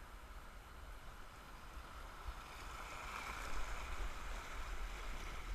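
Rushing whitewater of a river tube chute around a kayak. It grows louder about three seconds in as the kayak runs into the fast water, over a low rumble.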